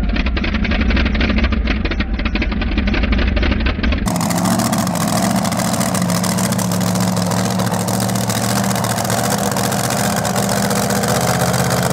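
Supercharged V8 engine of a mini-rod pulling tractor idling with a rapid, lumpy firing beat. About four seconds in the sound changes to a smoother, steady idle whose pitch creeps up slightly near the end.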